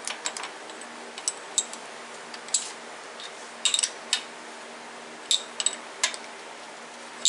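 Scattered light metallic clicks and clinks, some in quick pairs, as steel tooling is handled at the tailstock of an Atlas 10-inch metal lathe with the machine stopped. Under them runs a faint steady hum.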